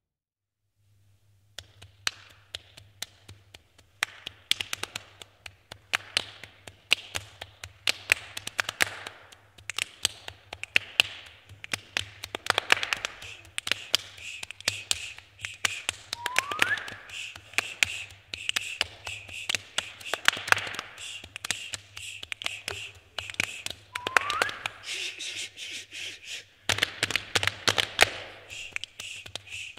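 Body percussion by a small group: hand claps, finger snaps and slaps in a dense, quick rhythm, starting about a second and a half in. Two short rising squeaks sound over it, and a steady low hum runs underneath.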